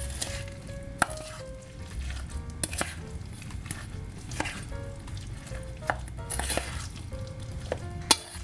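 A metal fork stirring a thick, wet cabbage-and-batter okonomiyaki mixture in a stainless steel bowl, folding air in to make it fluffy. Squelching mixing with occasional clinks of the fork on the bowl; the sharpest clinks come about a second in and near the end.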